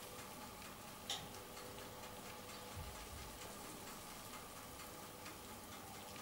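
Faint, rapid ticking and crackling as syrup is poured in a thin stream from a steel saucepan over a tray of baked baklava. There is a sharp click about a second in and a soft low thump about three seconds in.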